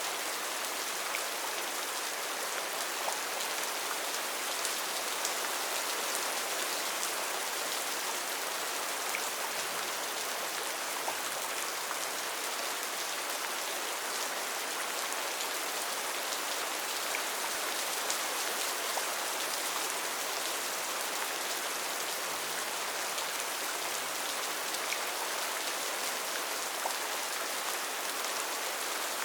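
Steady rain falling in a forest: an even hiss with scattered individual drops ticking out of it.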